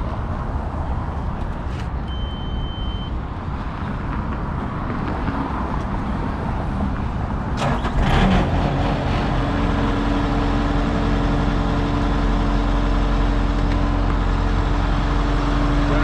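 Bobcat S650 skid steer's diesel engine running, left to warm up. A short high beep about two seconds in and a knock about eight seconds in, after which the engine note turns steady and even.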